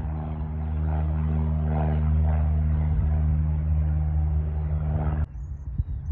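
Light propeller plane's piston engine and propeller running steadily at a constant pitch, cutting off abruptly about five seconds in.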